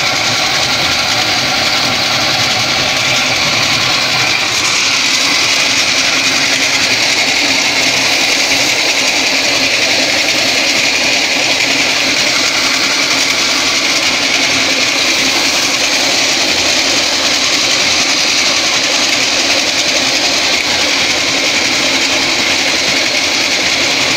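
Motorized grain mill running steadily as it grinds dried fava beans into flour: a continuous loud grinding hiss over the motor's hum, getting slightly louder about four seconds in.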